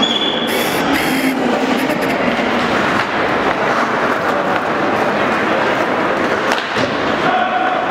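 Ice hockey game in an indoor rink: a steady noise of skates scraping the ice and spectators, with a few sharp clacks near the end.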